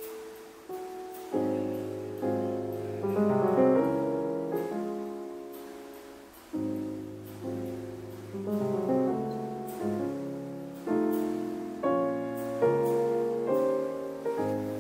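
Background piano music: a slow melody over chords, each note struck and left to fade.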